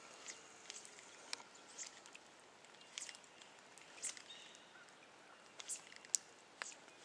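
Faint steady outdoor background hiss with about nine small sharp clicks and ticks scattered unevenly through it.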